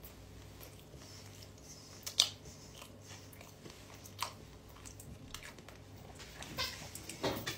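A man chewing a mouthful of burger with his mouth closed: soft, wet mouth clicks and smacks, with sharper ones about two seconds in, about four seconds in, and several close together near the end.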